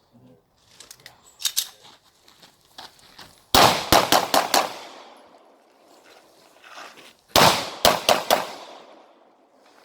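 Pistol fired in two quick strings of about five shots each, the first about three and a half seconds in and the second about seven and a half seconds in, with a couple of fainter shots earlier.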